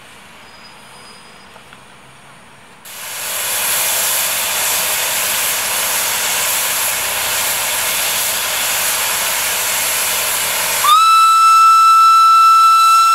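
A standing steam locomotive lets off steam with a loud, steady hiss for about eight seconds. Then its steam whistle blows one long, steady, shrill note that is louder than the hiss.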